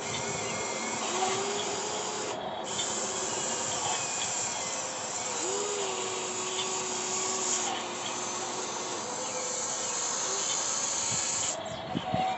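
Radio-controlled hydraulic excavator working: a steady hiss from its hydraulic pump, with a faint whine that holds for a second or more at a time as the arm and bucket move under load. The hiss dips briefly about two and a half seconds in and again near the end.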